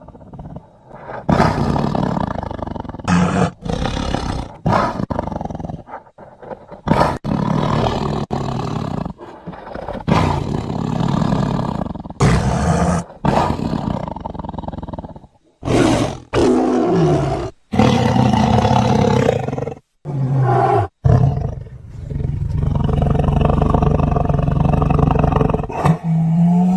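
A string of tiger roars and growls, edited together as creature sound effects, with abrupt cuts and short silences between the calls. Near the end, one longer roar is held unbroken.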